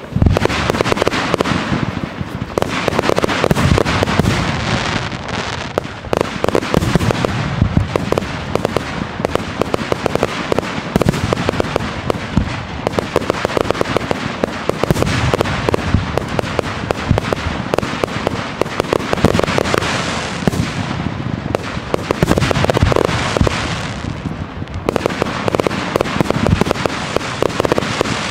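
Professional fireworks display: many shells bursting in quick succession, a dense, unbroken string of bangs.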